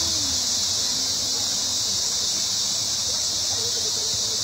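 Steady, high-pitched chorus of forest insects droning without a break, over a low wash of flowing water.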